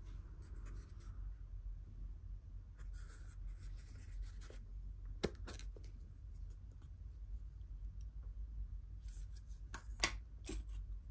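A paper dessert cup being handled and its lid pried open: faint scratchy rubbing of paper on paper in two short spells, with a few sharp taps, over a steady low hum.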